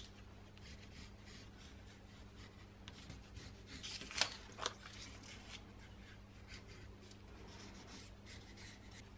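Pencil scratching faintly on cardboard as it traces around a paper template, with a few louder strokes about three to four and a half seconds in.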